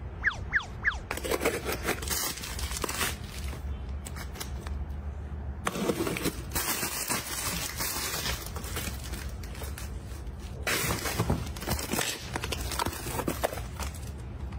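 Clear plastic storage bins and drawers being handled in a refrigerator: plastic clicking, tapping and sliding, with a few short squeaks near the start. Eggs are set one by one into a clear plastic egg tray.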